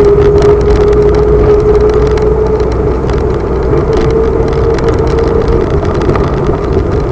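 Vehicle engine running steadily on the move, its pitch rising a little about four seconds in and settling back, over a steady low rumble.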